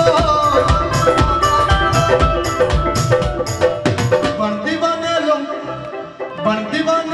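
Live devotional band music: dholak-type hand drums keep a quick, steady beat under a keyboard melody. The drums drop out about four seconds in and come back near the end, while the melody carries on.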